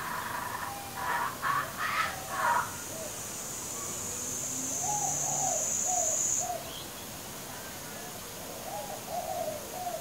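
Young laughing kookaburra making a weird gurgling noise, the calls of a hungry chick: a few rough pulsed calls in the first couple of seconds, then softer short notes repeated in runs. A steady high hiss runs alongside from about three seconds in and stops suddenly at about six and a half seconds.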